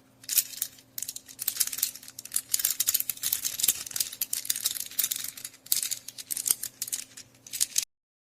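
Soroban (Japanese abacus) beads being flicked and clacked rapidly, a dense run of sharp clicks and rattles that cuts off suddenly near the end.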